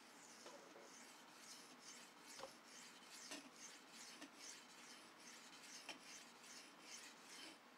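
Leatherman E33L's 154CM steel blade being stroked across an oiled sharpening stone: a faint rhythmic scraping about twice a second, with a few small clicks. These are counted honing strokes worked alternately on each side to shrink the burr on the edge.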